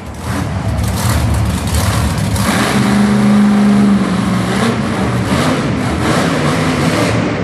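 Monster truck's supercharged V8 engine revving hard as the truck throttles up and down, the pitch rising and falling, with a high note held steady for about a second near the middle.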